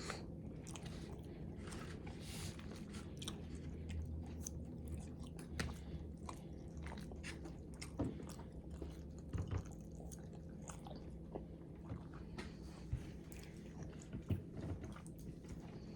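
A person chewing and biting food close to the microphone while eating ramen, with many small wet mouth clicks over a steady low hum.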